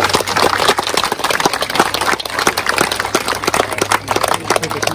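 Crowd of people applauding, the clapping dying away near the end.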